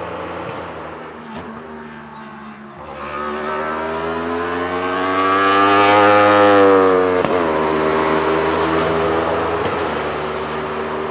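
Wolf GB08 Thunder race car, powered by a 1,000 cc Aprilia RSV4 V4 superbike engine, passing at speed on full throttle. Its engine note climbs in pitch and grows louder as it approaches, breaks and drops sharply as it goes by, then holds a lower note that fades as it pulls away.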